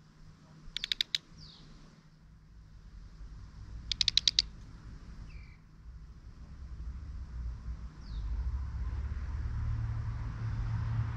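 Two short rattling bursts of rapid clicks, about a second and about four seconds in, from a black redstart chick perched on top of the camera. A few faint, short, falling bird calls come between them, and a low rumble builds from about eight seconds in.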